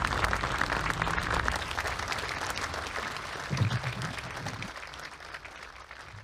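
A crowd applauding, many hands clapping, gradually fading out.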